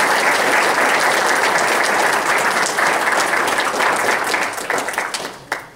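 Audience applauding: dense clapping from many hands that thins out and dies away near the end.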